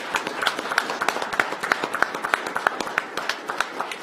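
Applause after an oath of office: a few people clapping, the individual claps distinct and irregular.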